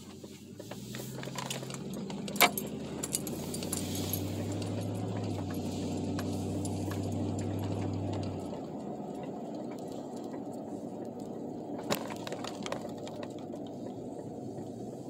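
The 4.8-litre V8 of a Chevrolet Silverado, breathing through a Carven R muffler, drones inside the closed cab as the truck pulls away, easing off about eight and a half seconds in. A sharp click about two and a half seconds in and another near twelve seconds.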